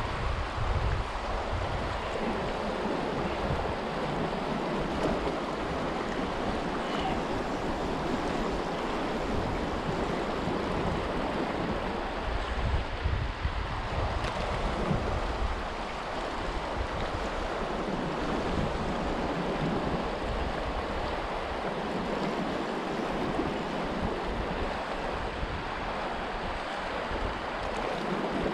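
Steady rush of a fast, riffled river's current, with wind buffeting the microphone in uneven low gusts.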